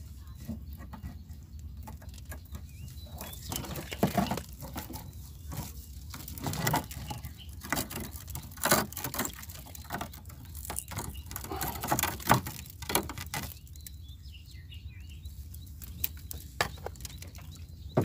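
Wire-mesh crab trap handled while small fish are pushed and tied into it as bait: irregular rattling and clicking of the mesh, busiest in the middle stretch, over a steady low hum.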